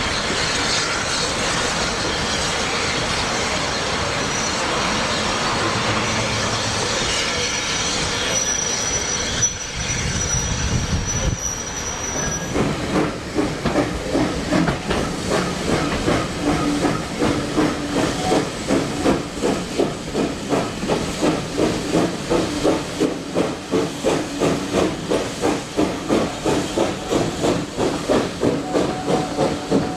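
Steam train getting under way: a steady hiss of steam at first, then, heard from a carriage, a regular rhythmic beat of about two to three a second as the train moves off.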